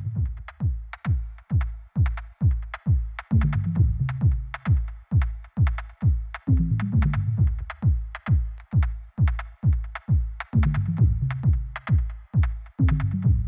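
Electronic background music with a steady kick drum at about two beats a second and a low bass line.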